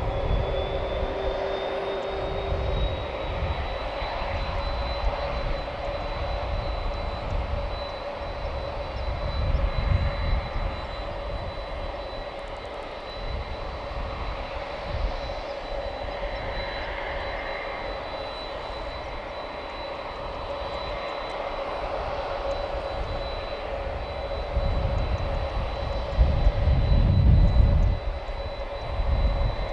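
Boeing 767 turbine whine: a thin high tone rises over the first few seconds and then holds steady over a steady lower hum. Gusty low rumbling swells and fades, loudest near the end.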